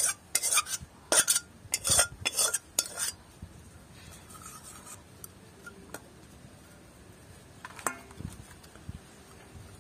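Metal spatula scraping cooked prawn curry out of an iron wok into a stainless-steel bowl: a quick run of scrapes, about two a second, over the first three seconds, then only a few faint clinks.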